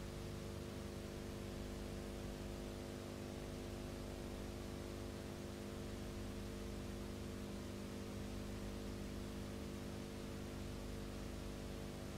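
Steady electrical mains hum with hiss on the soundtrack of a silent film transfer, unchanging throughout. There is no sound from the filmed scene.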